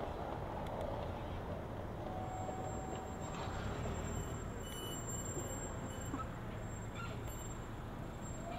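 Steady city street background noise: a low traffic rumble with an even hiss over it.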